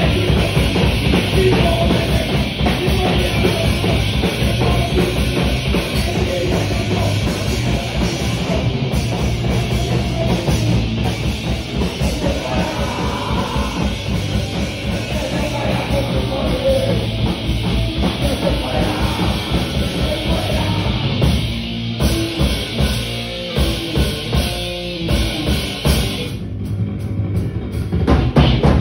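A live punk band playing loud, distorted electric bass and guitar over a pounding drum kit. About 22 seconds in the music breaks into stop-start hits, and the full band comes back near the end.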